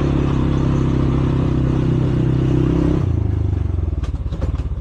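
Small engine of the four-wheeler being ridden, running at a steady speed; about three seconds in it drops back to a pulsing idle. A few light clicks or clatters follow near the end.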